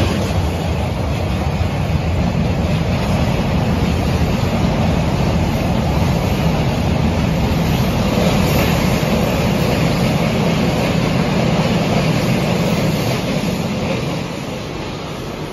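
Train of passenger coaches rolling past close by, a steady rumble of steel wheels on rail, with another electric train on the neighbouring track; the sound eases off near the end.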